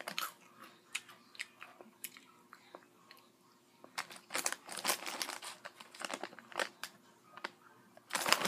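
A Hot Cheetos snack bag crinkling as a hand digs into it, with crunching as the Cheetos are chewed. Scattered crackles throughout, thicker about halfway through and again near the end.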